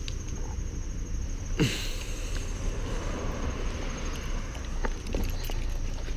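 Outdoor ambience: a steady low rumble on the camera's microphone, with insects trilling faintly throughout. A brief falling sound about one and a half seconds in.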